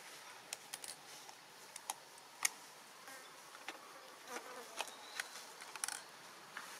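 Outdoor ambience with an insect buzzing, and many faint sharp ticks and clicks scattered through it.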